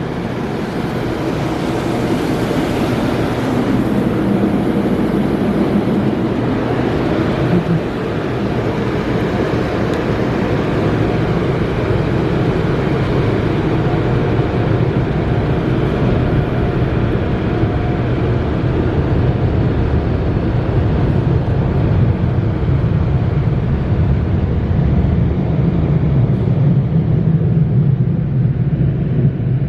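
Car wash tunnel dryer blowers running, heard from inside the car as a loud, steady roar of air with a low hum beneath it.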